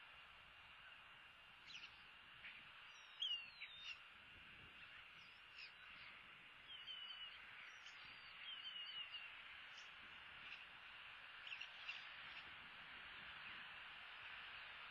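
Faint bird chirps and short warbling trills over a steady background hiss, the loudest a quick falling call a little over three seconds in.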